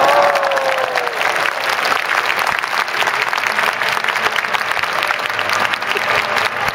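Large stadium crowd applauding steadily, a dense patter of many hands clapping.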